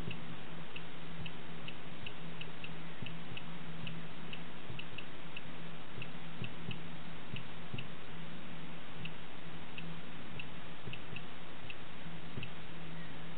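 Laser projection virtual keyboard giving short, high-pitched electronic click tones as keys are struck, irregular and about two a second, over a steady hiss and a low hum.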